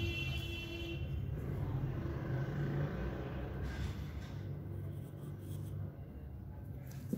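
Graphite pencil strokes on paper over a steady low rumble. A pitched tone stops about a second in.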